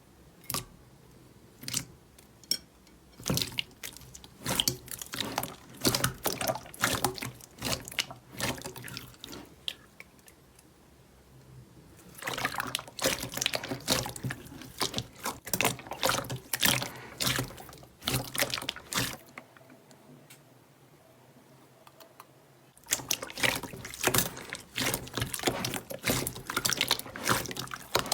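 Slime being squeezed and stretched by hand, giving dense runs of wet, sticky clicks and pops. It comes in three bouts with short, quieter pauses between them.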